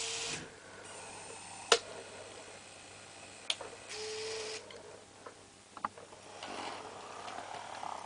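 Sharp clicks of the switches on a Kato N gauge turntable control unit and power pack. Near the end comes a faint, steady running sound of the small N gauge locomotive's motor as it drives off the turntable.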